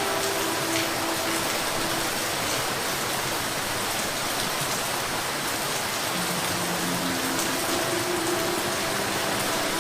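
Steady rain falling: an even hiss with a few sharper drop ticks, and faint low tones that come and go underneath.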